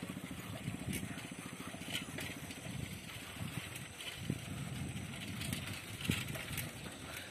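Bicycle rolling over a rough concrete road, recorded from on the bike: a steady rattling rumble from the tyres and frame, with a few sharp clicks.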